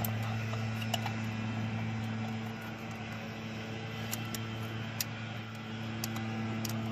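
A steady mechanical hum, with a few light clicks and taps of parts being handled.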